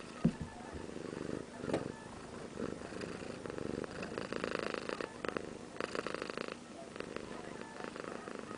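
Orange-and-white domestic cat purring steadily, recorded up close, with two sharp knocks within the first two seconds.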